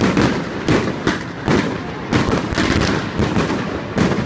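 Fireworks display: aerial shells bursting in quick succession, about a dozen sharp bangs at two or three a second, with a continuous rumble between them.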